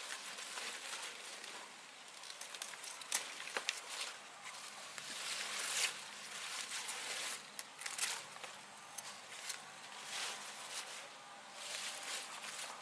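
Irregular rustling and crunching with scattered sharp clicks, in bursts of a second or so; no engine is heard.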